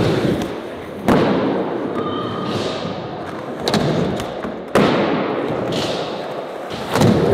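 Skateboards hitting flat ground during ollies: a sharp board impact about a second in and another a little before the five-second mark, with smaller knocks and a steady rolling noise between them.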